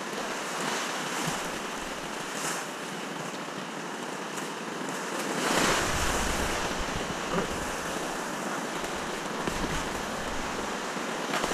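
Whitewater rushing and splashing around a kayak running a rapid, close to the boat-mounted camera. The rush swells louder, with a deep rumble, about halfway through.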